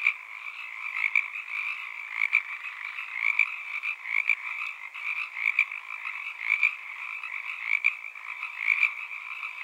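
A dense chorus of frogs calling without a break, with louder calls standing out about once a second.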